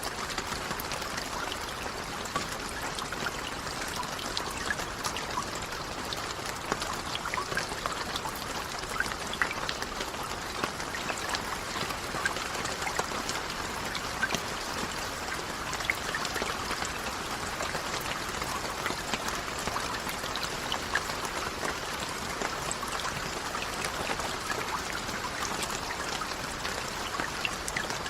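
Steady rain, a continuous hiss with many separate drops ticking sharply on a surface.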